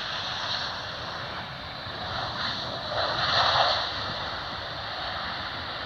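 Distant jet engine noise from a Ryanair Boeing 737-800 with CFM56-7B turbofans rolling out along the runway after landing, swelling about three seconds in and then settling.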